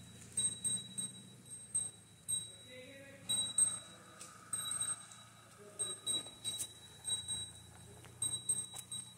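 Small metal bells on walking cattle, ringing in short irregular strokes a few times a second.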